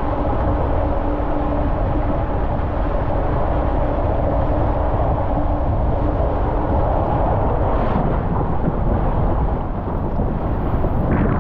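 Loud, steady rush of water and the rumbling slide of a rider through an enclosed fibreglass water-slide tube. It eases briefly near the end as the rider comes out into the open bowl.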